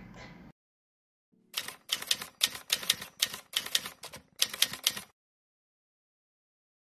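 Typewriter sound effect for text being typed out: a quick run of sharp key clacks, about four a second, lasting roughly three and a half seconds, starting after a second of silence.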